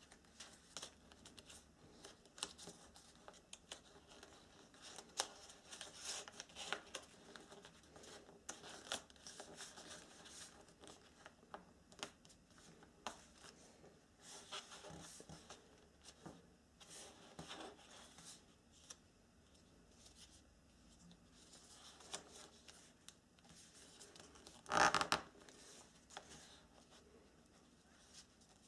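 Sheets of origami paper being folded and creased by hand on a wooden tabletop: faint, intermittent rustling and crinkling, with one louder rustle near the end.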